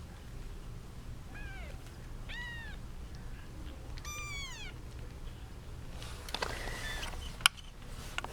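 Young kittens mewing: three high-pitched cries that rise then fall in pitch, about a second and a half in, at two seconds and at four seconds. Near the end comes a rustling and a single sharp click, the loudest sound.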